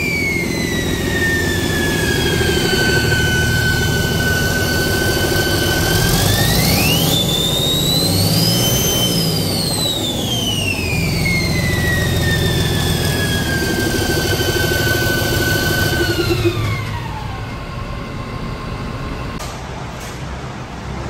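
2006 Cummins ISB 5.9L six-cylinder turbo-diesel running on a test run, a high turbocharger whine over the engine note. About seven seconds in it is revved once, the whine climbing and then falling back to idle, and near the end the engine shuts off and the whine winds down.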